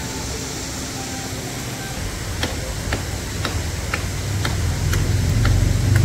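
Shallow river water rushing steadily over small rock cascades. From about halfway in, an even ticking comes in at about two ticks a second. A low rumble grows louder toward the end.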